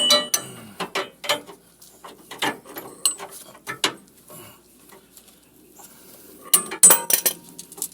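Irregular metallic clinks and knocks of a sway bar link and hand tools being worked into place, with a louder cluster of clanks near the end.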